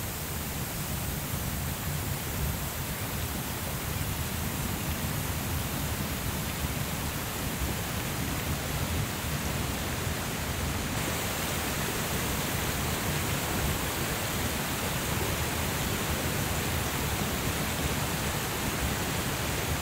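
Steady rush of water from a rocky stream and waterfall, with a slight change in tone about halfway through.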